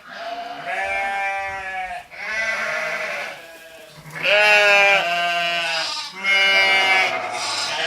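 A girl's voice drawn out in a string of long, wavering, bleat-like notes, about six in a row with short breaks between them.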